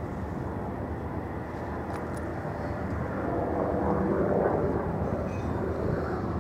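Steady low engine rumble from the approaching Wightlink car ferry St Clare, swelling a little about halfway through.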